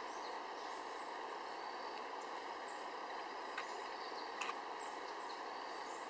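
Forest birds calling: several short, high notes falling in pitch and a few sharp chips, over a steady rushing background noise.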